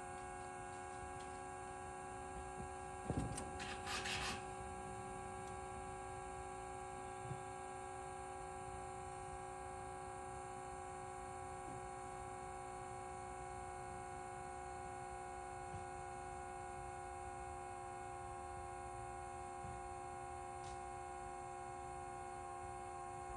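A steady hum made of several held tones, with a single knock about three seconds in and a short rustle just after.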